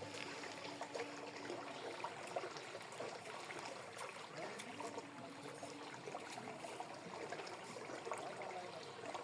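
Faint trickling and splashing of water, with small irregular ticks.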